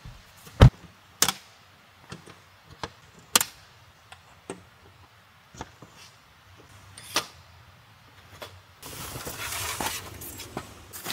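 Land Rover Defender's rear side door shut with a solid thump about half a second in, followed by scattered light knocks and clicks as gear is handled, and a couple of seconds of rustling near the end.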